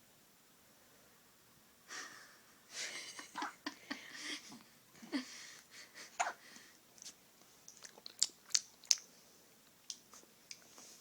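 A one-week-old newborn hiccuping: a string of short, sharp hiccups coming at irregular intervals, with soft breathy sounds between them.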